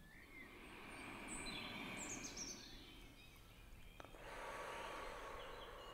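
Faint background nature ambience: a soft rushing that swells and fades twice, with a few high, falling bird chirps around two seconds in.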